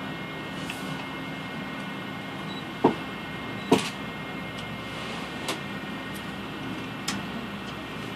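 Steady hum and rush inside a moving cable car cabin, broken by a few sharp clicks, the two loudest about three and four seconds in.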